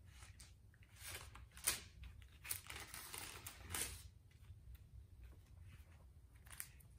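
Thin Bible pages being turned by hand: soft, papery rustles and crinkles, busiest in the first four seconds and fainter after.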